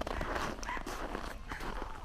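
Footsteps, irregular steps over a steady low rumble.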